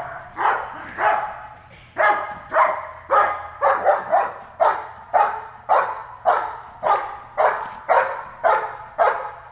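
Dog barking steadily and forcefully at a helper hidden in a blind, about two barks a second without a break: the bark-and-hold of a protection-phase dog-sport trial.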